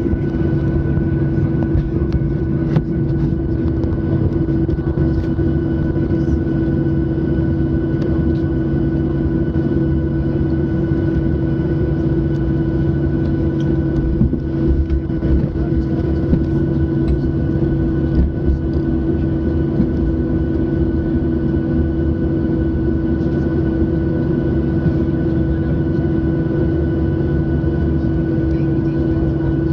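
Cabin sound of a Boeing 737-800 taxiing, its CFM56-7B engines at idle: a steady hum with several constant tones over a low rumble from the airframe and wheels. The rumble gets a little bumpier about halfway through.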